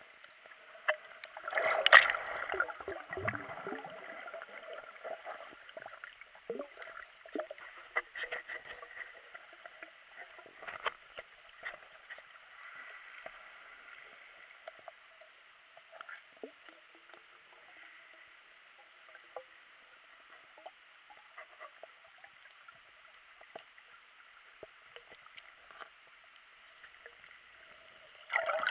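Underwater sound picked up through a camera's waterproof housing while snorkelling: muffled water noise with scattered clicks and crackles, and louder bursts about two seconds in and near the end.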